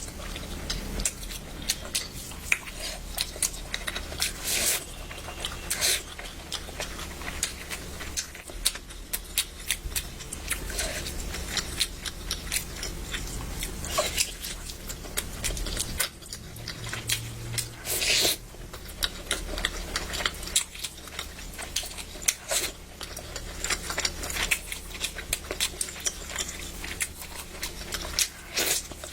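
Close-up eating sounds: a person chewing and biting, with many irregular mouth clicks and smacks, over a steady low hum.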